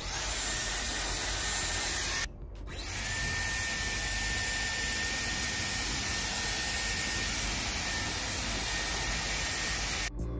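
Dyson Airwrap hair styler running with a curling barrel attachment: a steady rush of air with a thin, high motor whine. It breaks off for about half a second about two seconds in, then carries on the same.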